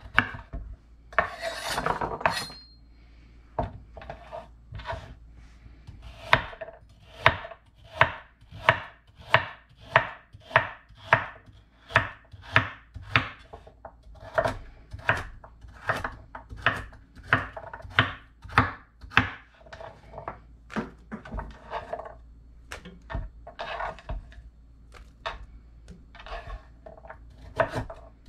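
Chef's knife slicing raw carrots into rounds on a wooden cutting board: a steady run of crisp knocks, about two a second, each stroke cutting through and striking the board. A brief scraping rustle comes about a second in, before the slicing starts.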